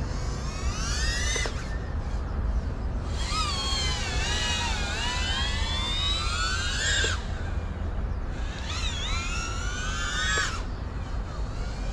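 FPV racing quadcopter's brushless motors whining, the pitch sweeping up and down with the throttle in three surges with short lulls between, the longest in the middle. A steady low rumble runs underneath.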